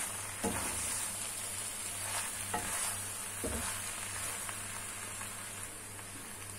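A wooden spatula stirs and scrapes chicken macaroni around a hot pan over a steady sizzle of frying. A few separate scraping strokes come in the first half.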